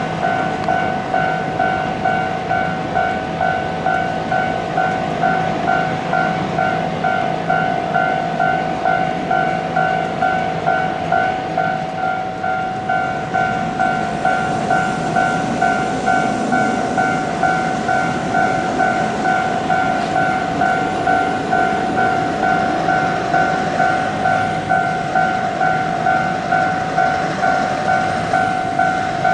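Japanese railroad crossing warning bell ringing steadily, an electronic two-tone ding repeating at roughly two strikes a second. A low vehicle rumble runs underneath and swells around the middle.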